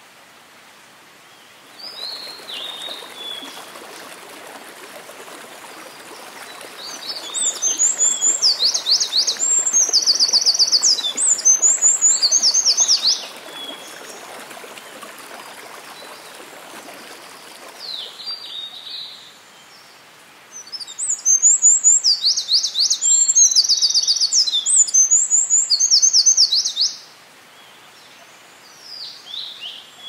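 Eurasian wren (winter wren) singing: two long, loud songs of rapid high trills and warbled notes, each about six seconds, with shorter snatches between. A steady mountain stream runs behind through much of it.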